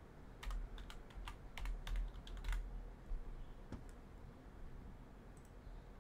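Faint computer keyboard typing: a quick run of keystrokes over the first two and a half seconds, then another key click a little before four seconds.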